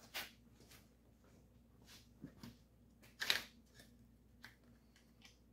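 Faint metallic clicks and clinks as a piston ring compressor is handled and fitted around a piston in the cylinder bore, with a short clatter about three seconds in.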